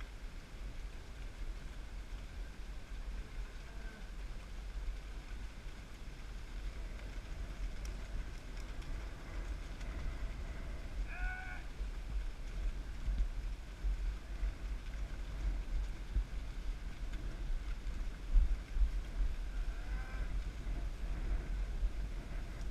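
Wind rumbling on the microphone over a cattle drive, with a few short bawls from cattle. The clearest bawls come about 11 and 20 seconds in.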